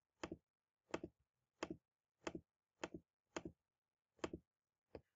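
Computer mouse button clicking eight times at an even pace, about one every two-thirds of a second, each click a quick press and release, as the weekday open/closed toggles are switched on.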